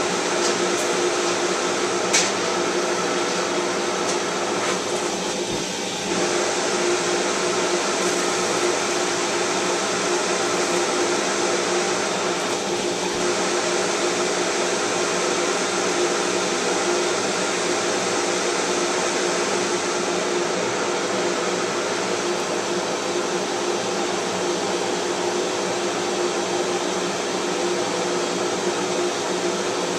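Big shop vacuum running steadily at the nozzle, a constant rush of air with a steady motor whine. There is a sharp click about two seconds in and a brief dip in level around six seconds.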